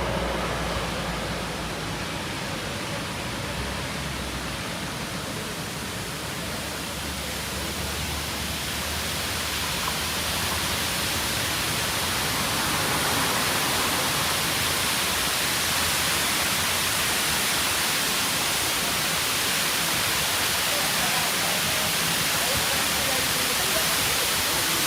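Waterfall rushing: a steady hiss of falling water that grows a little louder about ten seconds in.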